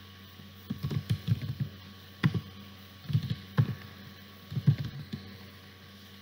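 Typing on a computer keyboard: irregular bursts of keystroke clicks, a few quick taps at a time with short pauses between, over a faint steady low hum.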